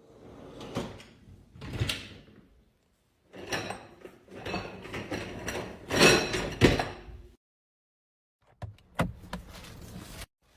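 Dishwasher racks and door handled: sliding and knocking sounds in four short spells, with dead silence between them, the longest spell running from about three and a half to seven seconds in.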